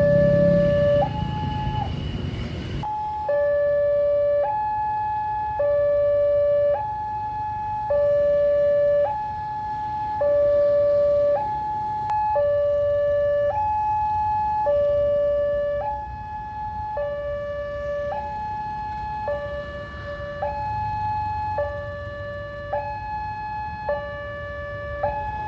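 Electronic two-tone warning alarm of a railway level-crossing barrier gate. It alternates evenly between a lower and a higher tone, each held about a second, signalling that the gate is closing for an approaching train.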